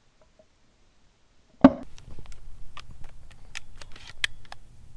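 A single shotgun shot about a second and a half in, fired at a pigeon in flight, followed by wind rumbling on the microphone and scattered sharp clicks and crunches.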